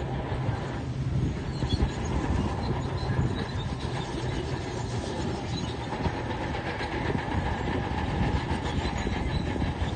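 A tracked heavy machine's diesel engine running steadily, with continuous clanking and rattling of its steel crawler tracks.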